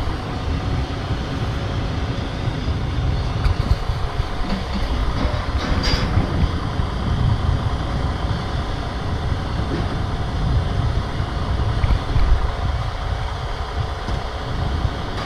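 Heavy truck engine running steadily, heard as a constant uneven low rumble, with a short knock about six seconds in.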